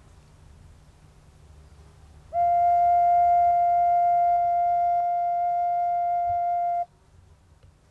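Clay wind instrument, an ocarina-type vessel flute, holding one steady note for about four and a half seconds, starting about two seconds in and cutting off sharply.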